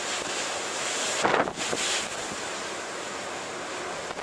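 Rough storm surf breaking against a seawall in strong wind, with wind buffeting the microphone. A louder rush comes about a second in and lasts under a second.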